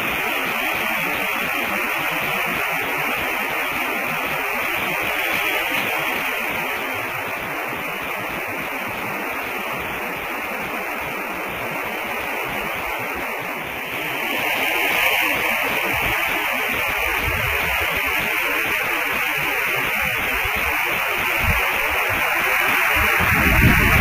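Steady static hiss, strongest in a high band, getting a little louder about halfway through; low rumbling comes in during the second half and grows near the end.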